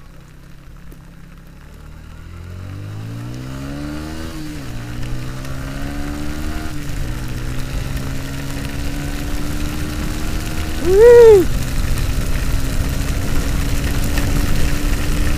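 Motorcycle engine accelerating hard: the revs climb, drop twice as it shifts up, then rise steadily again, over a constant rush of wind and wet-road noise. About eleven seconds in comes a brief, loud tone that rises and then falls.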